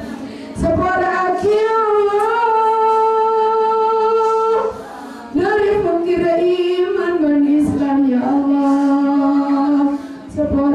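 A woman's voice chanting an Islamic supplication into a microphone in long, held, wavering notes, with short breaks for breath about halfway and near the end.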